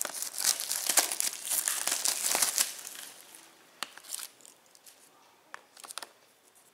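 Clear plastic shrink-wrap being torn and peeled off a Blu-ray case, crinkling steadily for about three seconds, then thinning out to a few light clicks as the case is handled.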